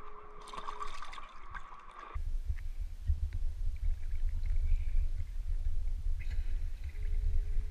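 Water sloshing against a camera held at the water surface, a steady low rumble. Before it, in the first two seconds, a few faint clicks and scrapes.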